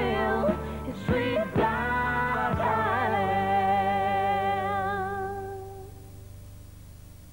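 Closing music ending on a long, wavering held note that fades out over the last couple of seconds, leaving faint tape hiss.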